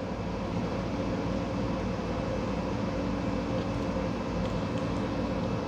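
A steady mechanical hum with a few constant tones, and a few faint ticks over it.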